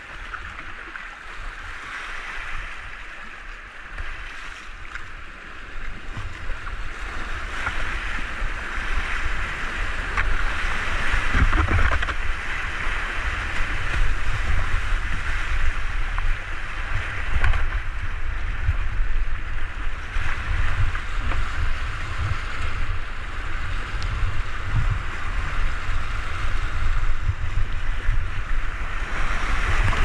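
Rushing whitewater of a river rapid heard from a kayak running it, with water splashing over the boat and a low rumble underneath. It grows louder about six seconds in as the boat drops into the heavier white water.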